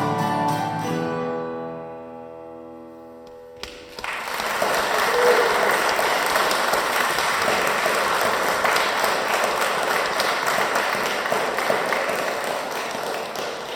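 The last guitar chord of the song rings out and fades over about three seconds. Then an audience applauds steadily, and the applause is the loudest sound.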